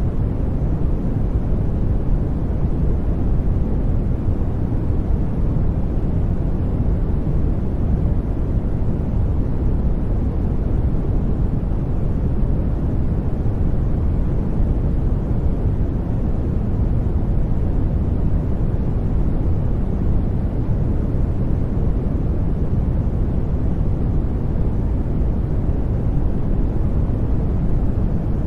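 Brown noise: a steady, deep hiss of synthetic noise, heaviest in the bass and thinning toward the treble, unchanging throughout.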